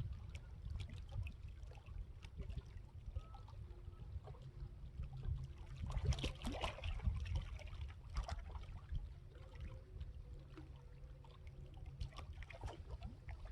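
Water sloshing and splashing faintly, with small scattered clicks and a somewhat louder burst of splashing about six seconds in, over a low rumble of wind on the microphone.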